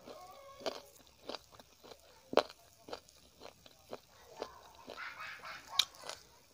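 Close-up chewing of a mouthful of rice and chicken curry: irregular wet mouth smacks and clicks, roughly two a second. The loudest smack comes about two and a half seconds in, with another sharp one near six seconds.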